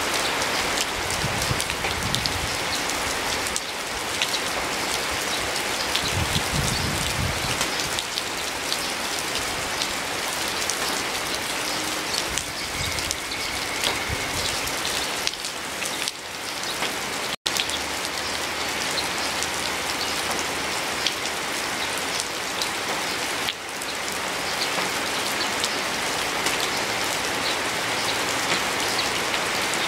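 Steady rain falling, an even hiss dotted with many separate drop hits. It cuts out for an instant about seventeen seconds in.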